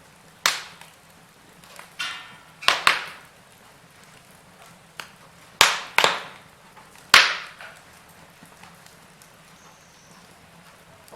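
Wood fire crackling: a series of sharp pops and snaps at irregular intervals, several loud ones close together in the middle, over a low steady hiss of burning.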